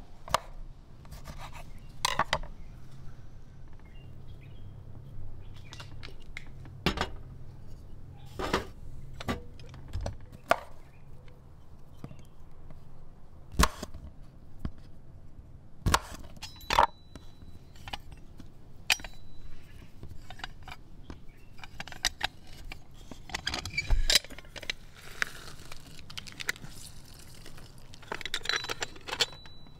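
Irregular knocks and clinks of lemons being cut with a knife on a wooden cutting board, along with the metal hand-lever lemon press being handled and clanked.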